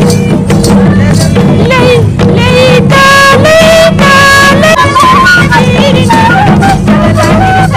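Music: a singing voice carries a melody, holding long notes midway, over dense, steady accompaniment.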